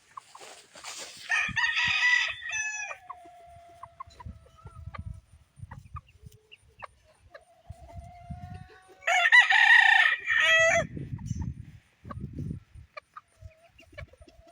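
Roosters crowing twice, a loud crow about a second in and another past the middle, each about two seconds long and ending in a drawn-out tail. Soft low thumps and small clicks come between the crows.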